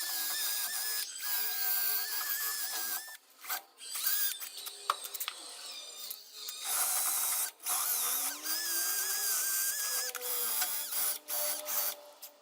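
Power tool fitted with a wire brush, scouring rust off the inside of a car fender. The motor whines in several runs with short stops between them, and its pitch sags and picks up again as the brush bites into the metal.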